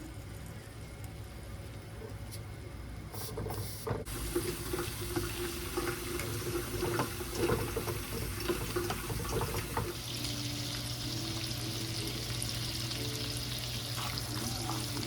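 Water running from a tap, starting about four seconds in with a few small knocks and becoming a steadier, brighter rush from about ten seconds in, over a low steady hum.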